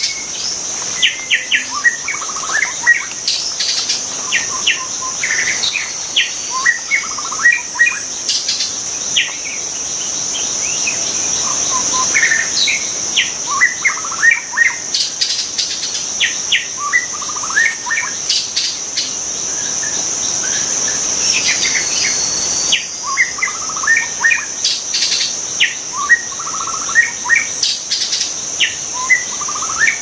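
White-rumped shama singing phrases of quick, varied whistled notes, broken by pauses of a few seconds, over a steady high-pitched insect drone.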